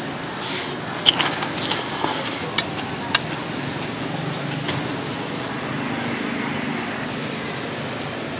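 Three sharp clinks of a metal spoon against a ceramic plate, with some rustling, in the first few seconds, over a steady background hum.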